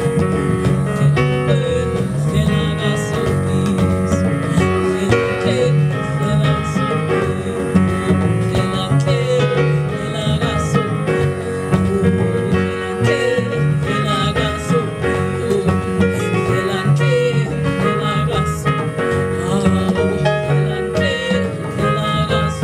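Live avant-garde jazz band playing: a woman singing with double bass and a plucked mbira underneath.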